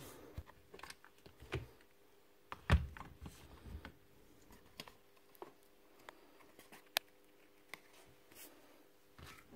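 Scattered light clicks and knocks of an opened cordless drill's plastic housing parts and a screwdriver being handled and set down on a concrete floor, the sharpest about seven seconds in. A faint steady hum sits underneath.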